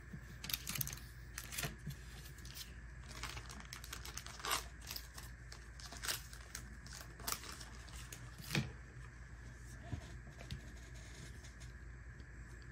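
A trading card and a clear plastic penny sleeve being handled: light, scattered crinkles, clicks and scrapes of plastic and card stock as the card is slid into the sleeve.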